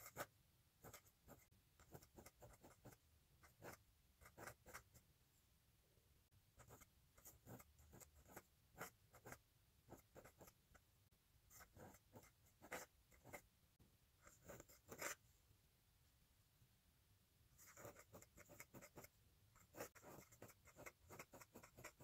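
Faint scratching of a pointed metal dip-pen nib across paper as script letters are written, in quick clusters of short strokes. There is a pause of a couple of seconds about two-thirds of the way through.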